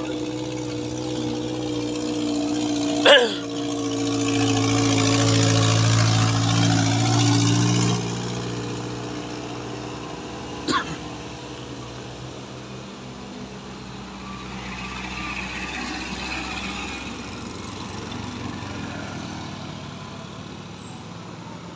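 A Suzuki Karimun's small petrol engine labouring up a steep hill in low gear, swelling as the car passes close and then fading. After it comes a quieter passing vehicle, with a sharp click about three seconds in and another near eleven seconds.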